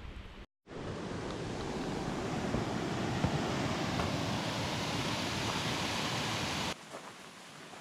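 Steady rush of white water tumbling down a small fall beside a footbridge. It starts after a brief gap about half a second in and cuts off abruptly near the end.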